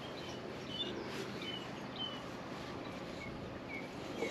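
Small birds chirping outdoors: repeated short, high chirps that dip slightly in pitch, over a faint steady background.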